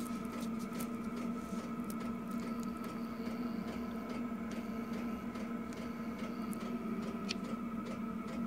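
Steady electrical hum with a fainter, higher whine above it, with a few light clicks and rubs from the handheld plastic tool being turned over.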